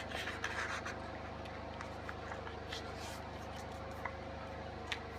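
A sheet of printer paper being folded and creased by hand: soft rubbing and rustling as the fold is pressed flat, with a few faint crinkles and ticks.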